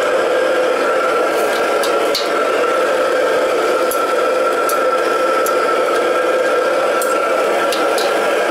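Steady roar of a commercial wok range, with a ladle clinking against steel seasoning bowls and the wok several times.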